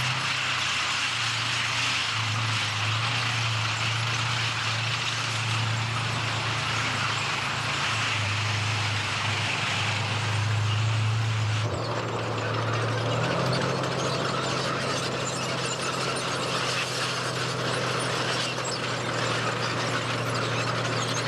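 Tracked tank on the move: its engine runs with a steady low drone under the clank and squeal of its tracks. The sound changes abruptly about halfway through, becoming more clattery.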